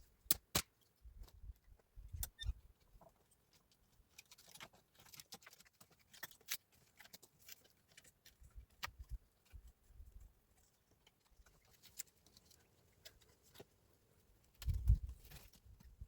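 Scattered small clicks, taps and light rustles, irregular and fairly quiet, with a low rumble near the end.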